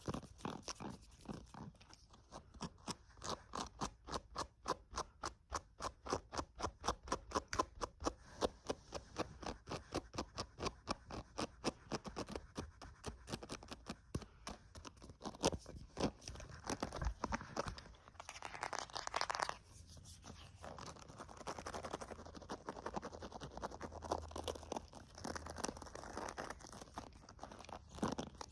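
Fast ASMR triggers close to the microphone: rapid, even tapping at about four to five taps a second, giving way about halfway through to quick scratching and rubbing.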